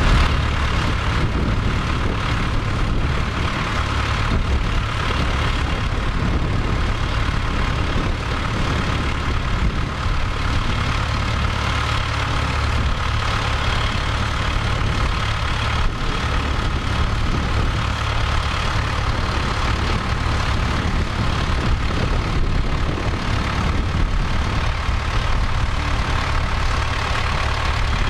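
Case tractor's diesel engine running steadily while ploughing, a continuous heavy engine sound with no breaks.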